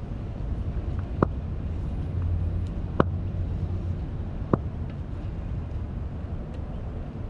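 Steady low wind rumble on the microphone, with three sharp knocks spaced a second or two apart.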